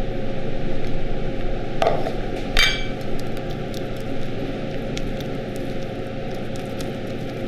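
A silicone spatula folding whipped cream into pastry cream in a stainless steel bowl, with two knocks about two seconds in, the second a ringing metallic clink of steel bowl and utensil, over a steady hiss.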